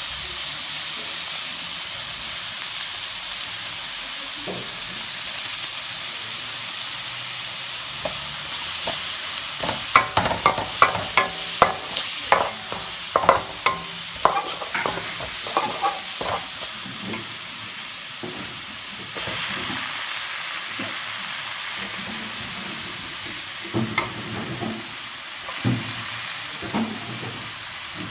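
Beef and carrots sizzling in a steel wok as they are stir-fried. A spatula scrapes and knocks against the pan in a quick run of strokes from about ten to sixteen seconds in, and a few more strokes come near the end.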